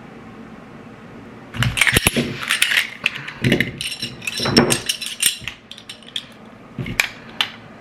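Rapid metal clicks and clacks of a Glock 43 pistol being handled, in the way of a fast take-down and reassembly: slide, spring and frame snapping apart and back together. They start about a second and a half in and come in quick clusters.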